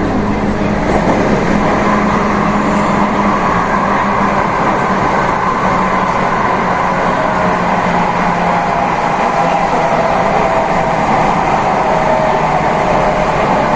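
Train running steadily, with a constant rumble and steady tones in its hum.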